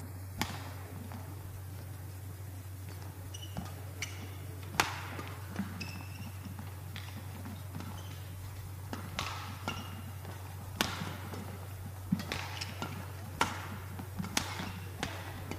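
Badminton rally: a dozen or so sharp smacks of rackets hitting the shuttlecock, irregularly spaced, the loudest about five seconds in, with short squeaks of shoes on the court mat. A steady low hum runs underneath.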